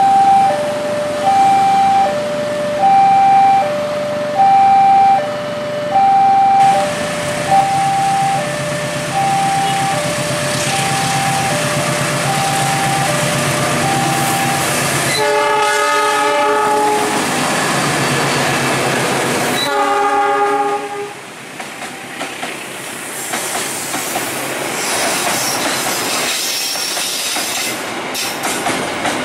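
A level-crossing warning signal sounds as an alternating two-tone alarm, fading as a diesel locomotive approaches. The locomotive sounds its horn twice, two chord blasts about 15 and 20 seconds in. Then a container freight train's wagons roll past with a steady clickety-clack.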